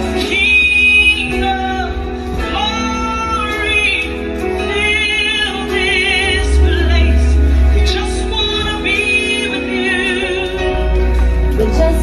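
A song playing: a woman singing, with vibrato on her held notes, over a steady low bass.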